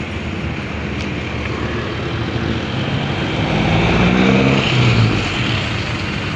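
Road traffic passing on a city street: a steady rush of tyres and engines, with one vehicle's engine passing loudest about four to five seconds in.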